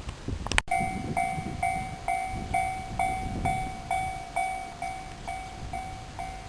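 Japanese railway level-crossing warning bell ringing its repeated electronic ding, a little over two strikes a second, warning that a train is approaching. It starts about half a second in, right after a sharp click.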